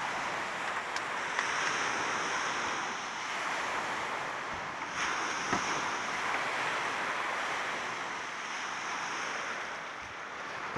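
Small waves breaking and washing up on a pebbly shore, a steady rush that swells and eases every few seconds, with some wind on the microphone.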